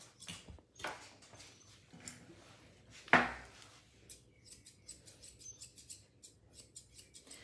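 Dog-grooming scissors snipping through a spaniel's coat as it is blended, a run of short, sharp clicks. One louder knock about three seconds in.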